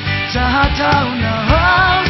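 Nepali pop-rock song: a male singer's voice over a band with a steady beat.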